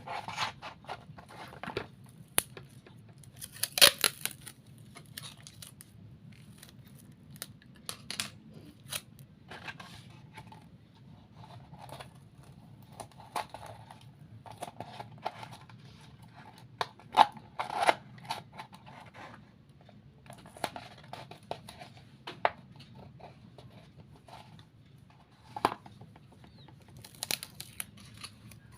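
Scissors cutting paper in short, irregular snips, with rustling and small clicks as the paper is handled.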